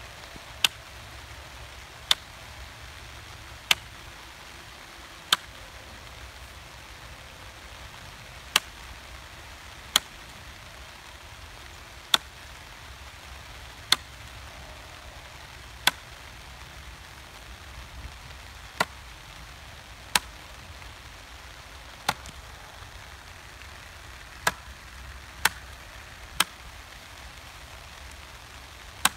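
Corded electric stapler driving staples through plastic sheeting into a wooden 1x3 board: about fifteen sharp snaps, one every one to two seconds, over a steady low hiss.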